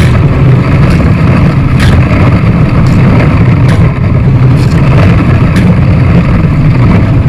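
Kayak hull grinding through thin sheet ice: a loud, steady, low rumble with light clicks about once a second.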